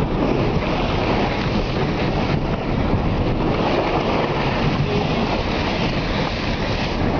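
Steady rush of water splashing and spraying against a two-wheel-drive truck as it drives through about a foot of standing water, heard from inside the cab with the engine running beneath it.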